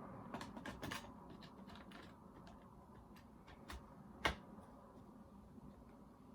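Scattered light clicks and knocks of a graphics card and PC case parts being handled and fitted, with one sharp, louder click a little past four seconds in.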